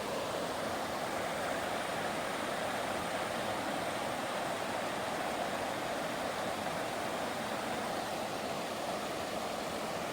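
Mountain stream rushing, a steady even hiss of running water.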